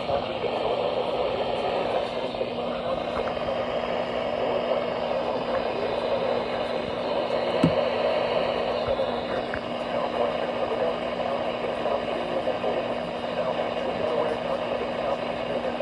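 Weather radio receiver hissing with static, with a steady low hum beneath it and a single click about halfway through.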